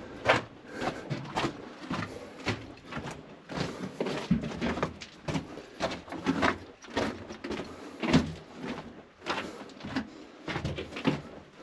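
Footsteps on loose rock and gravel, an irregular run of short scuffing steps about two or three a second.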